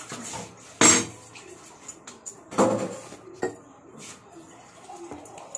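Dishes and utensils clattering as they are washed and set down at a kitchen sink: two loud clanks, about a second and two and a half seconds in, with a smaller knock soon after and light clinks between.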